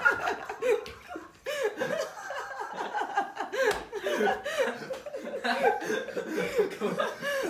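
A person laughing without a break, a quick run of short high-pitched laughs, each rising and falling in pitch.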